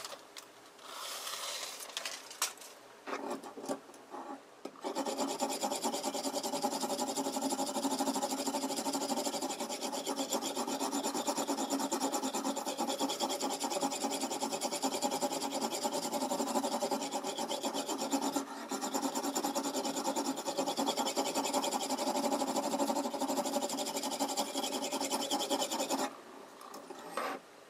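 Oil whetstone on a Toohr guided knife sharpener stroked rapidly back and forth along a kitchen knife's edge, making a steady abrasive scraping. A few short separate rubs come first, then the strokes run on continuously from about five seconds in until near the end.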